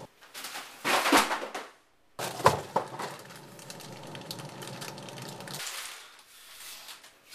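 Rummaging in a refrigerator-freezer: a plastic bag of frozen food crinkles loudly about a second in, then frozen packages knock and rustle, over a steady appliance hum that stops near the end.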